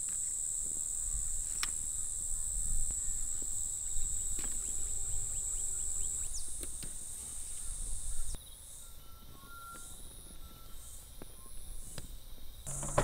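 Insects chirring in a steady high-pitched drone over a low rumble of wind; about eight seconds in the rumble drops away and the chirring turns to short pulses about once a second.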